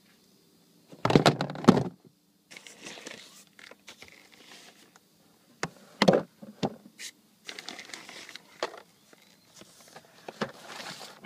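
Clear plastic Sterilite storage box being handled in a boat's storage compartment: a loud clatter of plastic about a second in, a sharp knock about six seconds in, and scraping and rustling of the lid and contents in between.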